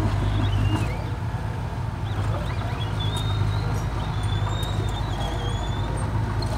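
Komatsu mini bulldozer's diesel engine running steadily under load with a low hum as it pushes soil. Faint clicks and thin high squeaks sound above it.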